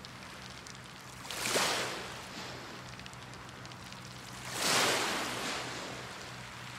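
Sea waves washing in twice, about a second and a half in and again near five seconds, each a surge of splashing noise that fades away, over a steady low hum.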